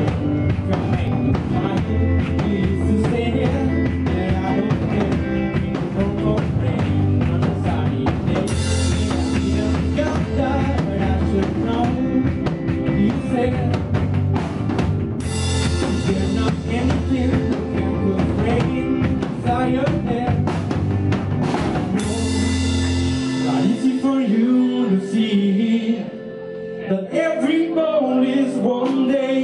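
Live rock band playing: electric guitars, bass, drum kit and keyboard, with cymbal crashes. About 23 seconds in, the bass and drums drop out, leaving guitar and keyboard.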